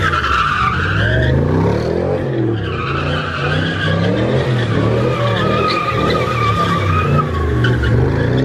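Car doing donuts: the engine revs up and down over and over while the rear tyres squeal continuously as they spin and slide on the pavement.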